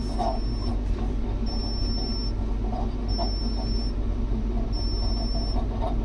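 Electronic warning beeper sounding a high, even beep about every second and a half, four times, over a steady low hum.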